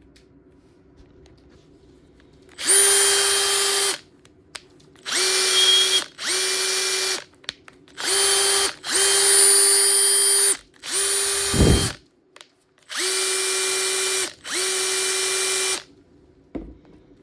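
Makita TP131D cordless 4-mode impact driver's motor run with no load in about eight short trigger bursts, each spinning up quickly to a steady whine and stopping after roughly one to one and a half seconds.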